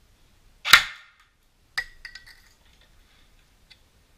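Airsoft gun fired once at close range into a small polycarbonate panel: a single sharp shot with a short ringing tail. About a second later comes a smaller sharp click, then a few light ticks.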